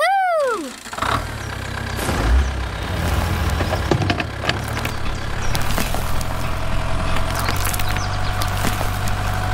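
Tractor engine running steadily, with light clicks over it. A short falling tone sounds at the very start.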